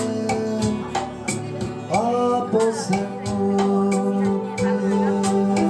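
Music: a song with a sung melody over plucked guitar and a steady beat.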